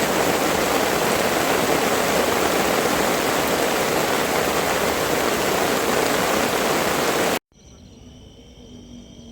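Steady, loud rush of running water, such as a stream or waterfall, that cuts off suddenly about seven seconds in.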